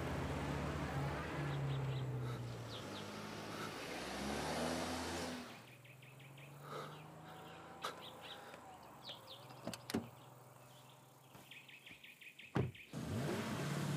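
A car engine running, its pitch rising as it revs, then fading out about five seconds in. Birds then chirp in the quiet, with a few sharp clicks, and a loud rush of engine noise comes back near the end.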